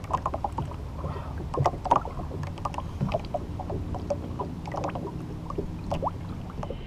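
Lake water splashing and sloshing against the boat's side as a muskie is held in the water and released, with many small irregular clicks and knocks over a steady low hum.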